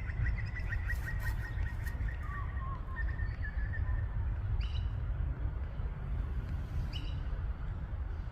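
Bird calling: a quick run of chirps for about four seconds, with a short warble partway through, then two brief calls later on. A steady low rumble runs underneath and is the loudest sound.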